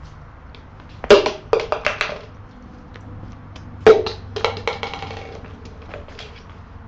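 Hollow knocks and clatter of a handheld can and plastic tub being tossed and caught: a loud knock about a second in followed by a few quicker rattles, then another loud knock about four seconds in with more clatter after it.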